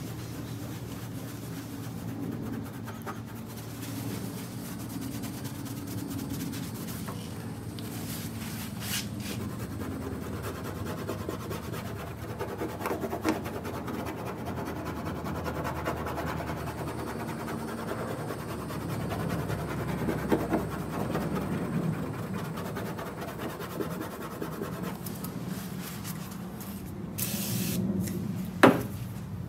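Intermittent rubbing and scraping on a car's painted bodywork and trim, with a few light taps and a sharp click near the end, over a steady low hum.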